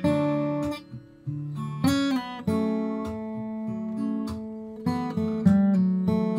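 Acoustic guitar played solo in an improvisation: single plucked notes and short chords. About two and a half seconds in, a chord is struck and left to ring for a couple of seconds before the picking starts again.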